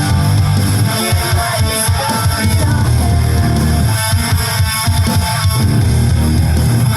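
Rock music with electric guitar, bass and drum kit.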